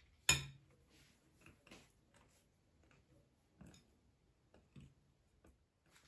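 A spoon clinking against a ceramic mixing bowl while flour is stirred into cake batter. There is one sharp clink just after the start, then a few fainter taps and scrapes.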